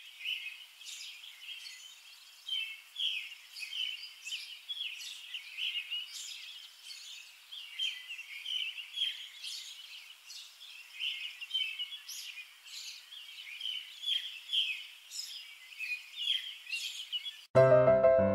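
Small birds chirping and twittering in quick, overlapping calls. Piano music starts suddenly just before the end.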